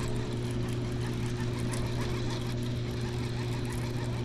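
Steady low mechanical hum, like an engine or machinery running evenly, with a few fainter steady higher tones over it.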